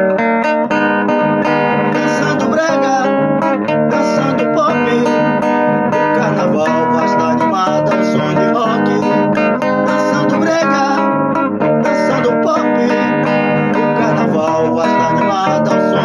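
Music: a rock song led by guitars, with a dense, steady accompaniment.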